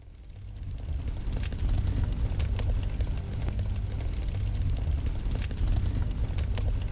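Title-card sound effect of a deep rumble with fire crackling, fading in over the first second.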